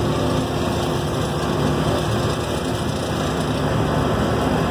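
Engine of a plow-equipped vehicle running steadily while driving, with a continuous low rumble and the even hiss of road and wind noise.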